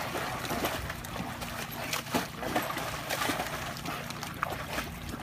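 Shallow water splashing and sloshing irregularly as a Rottweiler wades and paws through it.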